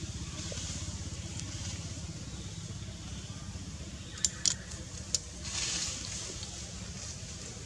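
Low, steady, evenly pulsing rumble of an idling engine. About four to five seconds in come three sharp clicks, followed by a short hiss.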